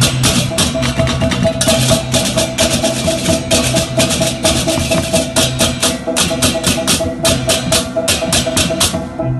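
Balinese baleganjur gamelan playing: fast, dense crash-cymbal strokes over drums, with a steady ringing gong tone and a low pulsing gong beneath. The cymbals drop out just before the end, leaving the gongs ringing.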